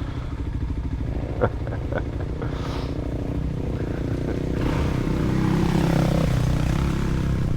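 A quad bike approaching and passing, growing louder through the second half, over a motorcycle engine running steadily.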